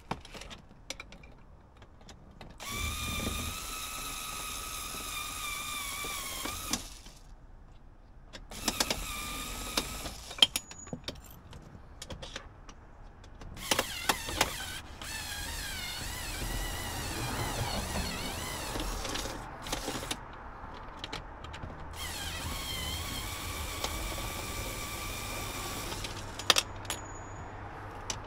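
Electric drill-driver running in several bursts of a few seconds each, its motor whine wavering in pitch as the trigger is eased, with clicks and small knocks in between, as fasteners are undone to take out a steering column.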